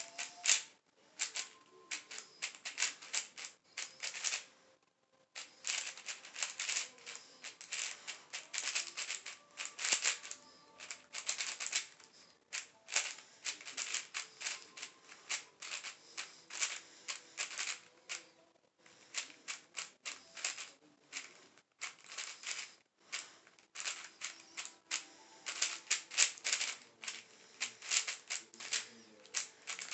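Plastic YJ MGC 4x4 speed cube being turned fast by hand: rapid bursts of clacking layer turns, broken by a few brief pauses.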